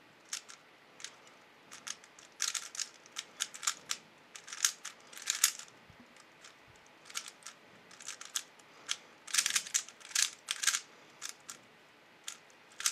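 A 3x3 speedcube being turned fast by hand: bursts of quick plastic clicks and clacks as the layers snap round. There are brief pauses about six seconds in and again near the end.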